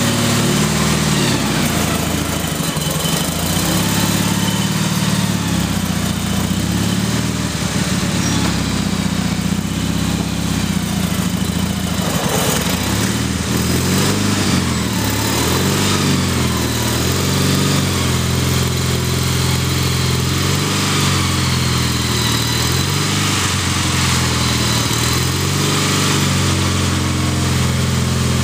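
Gravely riding tractor's engine running steadily under load while plowing snow with a front blade, its pitch rising and falling a little as the load changes.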